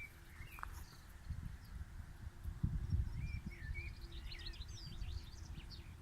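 Songbirds singing in the evening: short chirps and quick whistled phrases, busiest in the second half, over a low rumble that peaks about three seconds in.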